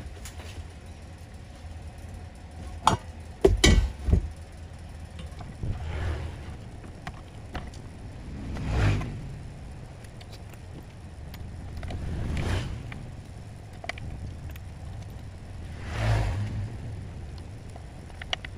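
Sharp metal clicks and a short clatter about three to four seconds in, from the car amplifier's board and screws being handled against its metal heatsink chassis. A low steady hum runs underneath. A whooshing noise swells and fades several times, about every three to four seconds.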